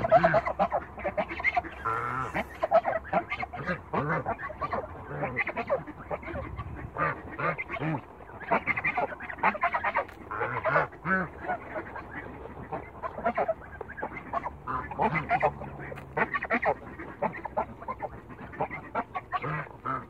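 A flock of young African geese honking: many short calls, often overlapping, following one another in quick succession.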